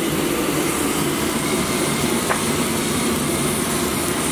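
Steady roar of a gas burner under the cooking pans.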